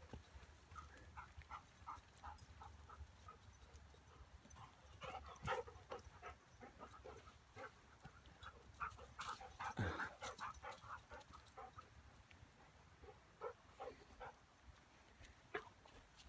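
Faint dog sounds, short whimpers and panting repeated two or three times a second, with rustling of feet through dry leaf litter; louder spells come about five seconds in and again about ten seconds in.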